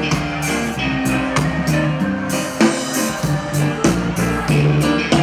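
Live reggae band playing: electric guitar, bass guitar, keyboards and drum kit, with drum hits at an even beat.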